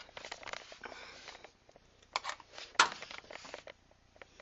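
Hand tools being handled: scattered clicks, rustles and a couple of sharp metallic clinks about two and three seconds in.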